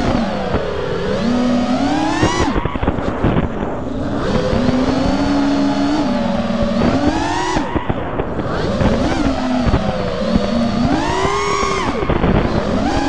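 Racing-quad brushless motors (T-Motor 2305 2450kv) with three-blade props whining, the pitch sweeping up and down with each throttle punch and drop. The higher hiss cuts out briefly a couple of times where the throttle is chopped, heard from the onboard action camera.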